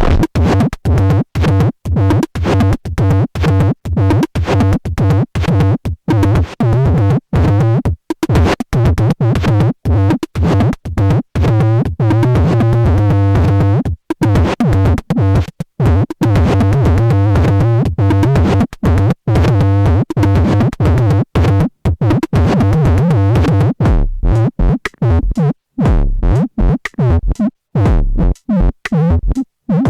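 Electronic noise music: dense synthesizer sound over a steady low drone, chopped into stuttering bursts by many abrupt cut-outs to silence, which come faster and more broken near the end.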